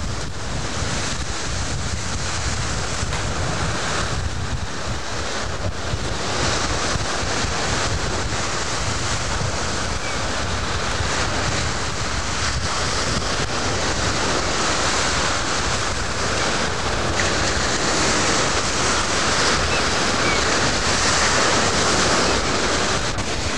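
Sea surf washing onto the beach as a steady rush, with wind buffeting the microphone.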